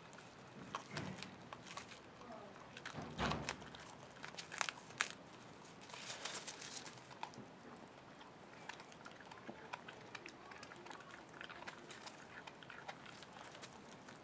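A Cavalier King Charles Spaniel puppy chewing and crunching raw vegetables, with irregular crunches and clicks and some rustling of leaves and twigs. The crunching is loudest about three to five seconds in.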